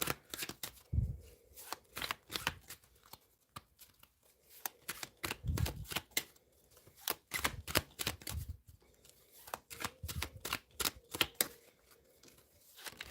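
A tarot deck being shuffled by hand: a long run of quick, irregular card flicks and slaps, with a few soft low thumps among them.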